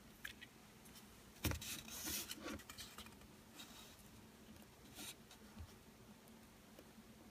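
Faint handling noise: a few small clicks and knocks with light rustling as hands and a sleeve move over a breadboard circuit while battery leads are connected. The clearest knock comes about a second and a half in, over a faint steady low hum.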